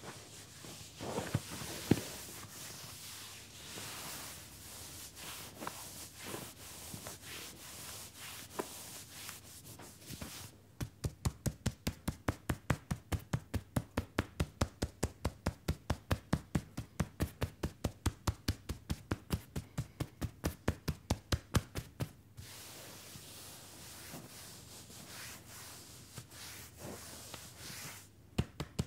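Hands massaging a leg and foot: rubbing and kneading through trousers at first, then, about ten seconds in, a long run of quick, even percussive taps at about four a second, typical of tapotement. Rubbing resumes for a few seconds and the tapping starts again near the end.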